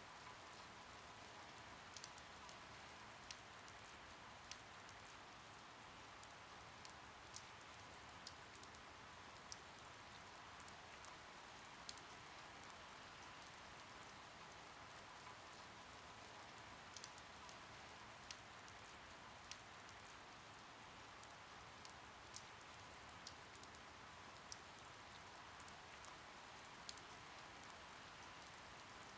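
Faint, steady rain falling, with scattered single drops ticking sharply every second or two.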